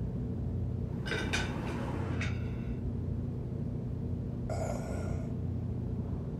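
A man's three short breathy vocal sounds, like gasps or heavy breaths, over a steady low hum.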